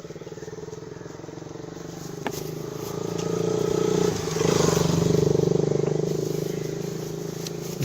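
A motor vehicle's engine passing by: a steady pulsing engine hum that grows louder to a peak about halfway through and then fades away. A single sharp click sounds about two seconds in.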